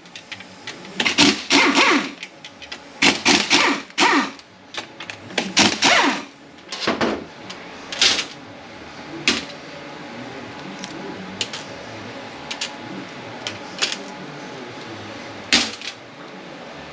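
Workshop tool and metal-parts noise during the unbolting of a transmission's pump and bell housing. A few loud bursts about a second long come in the first six seconds, then scattered sharp metallic clicks.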